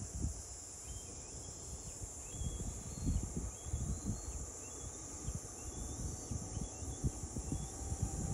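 Outdoor shore ambience: wind buffeting the microphone in uneven gusts over a steady high hiss of insects, with scattered short high chirps.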